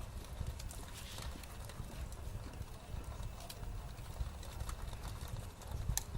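Pencil sketching on paper: irregular strokes and light taps against the desk, with a sharper click about six seconds in.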